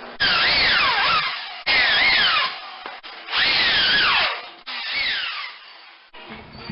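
Power drill driving screws in four short runs, its motor whine dropping in pitch during each run.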